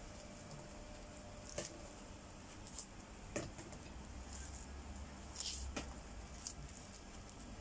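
Faint rustling and about five scattered soft clicks from a plastic-gloved hand pulling sticky bulbs out of a halved ripe jackfruit.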